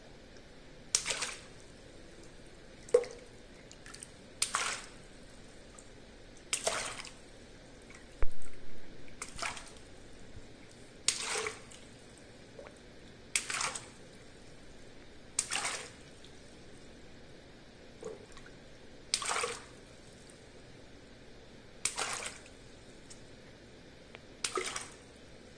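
Small latex water balloons being popped one after another with a pin. Each gives a sharp pop and a short splash of water, about a dozen in all, roughly every two seconds. The loudest comes about eight seconds in.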